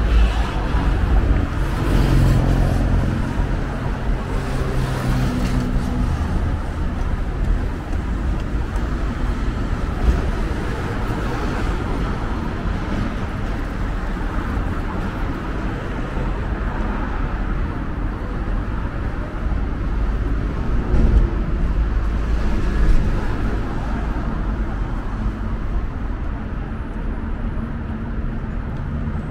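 Steady city road traffic: cars and trucks running and passing on a wide multi-lane street. A nearby engine's low hum stands out in the first few seconds.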